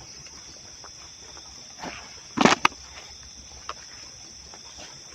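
Steady high chirring of crickets, with scattered footsteps and a loud, brief rustling crunch about halfway through.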